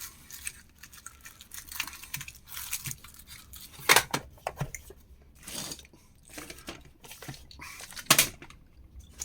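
Small metal screws and washers rattling and clicking as they are picked through by hand in a small box, with two louder clacks about four seconds and eight seconds in.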